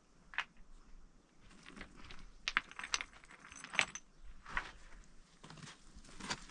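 Loose stones clinking and knocking against each other as they are gathered by hand from a rock pile: a string of irregular sharp clicks, the strongest about two and a half to four seconds in.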